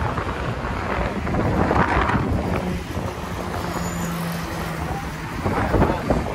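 Road traffic passing on a multi-lane highway below, with wind buffeting the microphone; vehicles swell past about two seconds in and again near the end.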